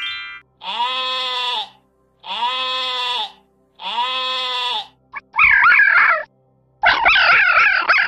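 Sheep bleating three times, each bleat about a second long, after a brief rising tone at the very start. From about five seconds in, a red fox gives two loud calls with a rapidly wavering pitch.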